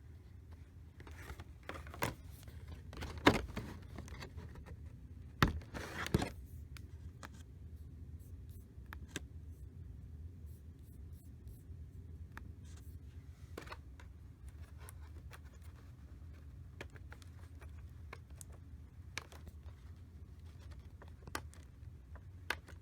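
Plastic figure packaging being handled and picked at to free a taped-in figure: scattered clicks and scrapes, with a few sharper knocks in the first six seconds.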